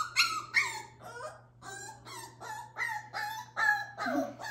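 Seven-week-old Cardigan Welsh Corgi puppy crying in a rapid run of high, downward-bending yelps, about three a second.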